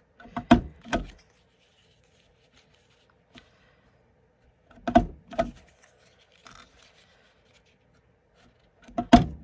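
Handheld corner-rounder punch snapping through card stock as corners are rounded: three punches about four seconds apart, each a quick double click as it presses shut and springs back.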